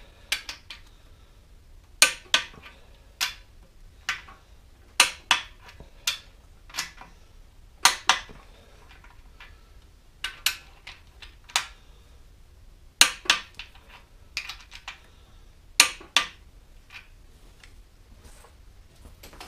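A torque wrench and socket on cast-iron main bearing cap bolts making sharp metallic clicks and clinks, irregular and often in pairs, as each bolt's torque is rechecked. The clicks stop a couple of seconds before the end.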